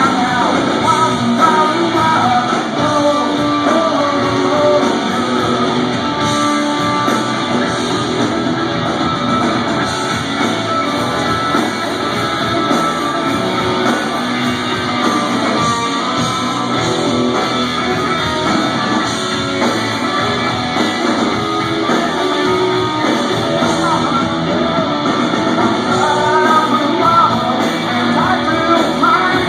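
Live rock band playing loudly, led by electric guitar, with singing near the start and again near the end.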